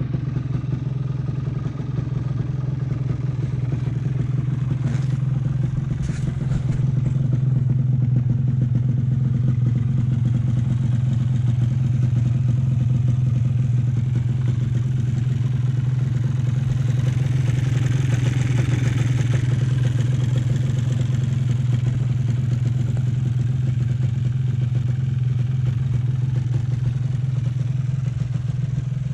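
Suzuki MX125 off-road motorcycle engine running steadily, its note holding nearly constant and getting a little louder about eight seconds in, with some mechanical clatter.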